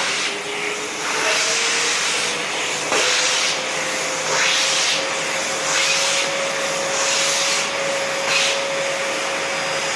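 Steam-cleaning vacuum's motor running with suction on, its whine rising in pitch over the first few seconds and then holding steady. Repeated swishes about every second and a half as the nozzle is drawn over the surface.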